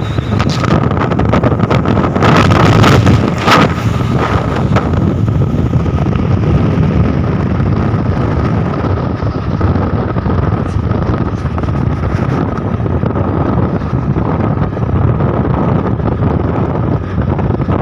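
A truck running on the road, with heavy wind buffeting the microphone. A faint steady whine sits over the rush, which gets louder for a moment about two to three seconds in.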